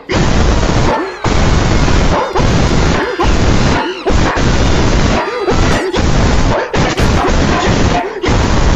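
A gorilla roaring and growling in a string of loud bursts, each cut off by a short break about a second apart.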